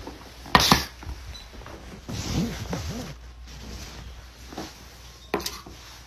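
Stainless-steel dog bowls being set down on a hard floor: sharp metallic knocks, a pair about half a second in and another pair near the end, with some scraping and clattering in between.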